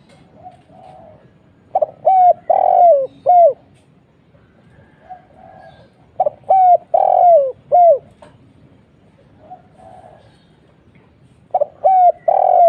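Spotted dove (tekukur) cooing. It gives three phrases of four or five coos each, about four and a half seconds apart, the middle coo of each phrase longest. Fainter coos fall in the gaps.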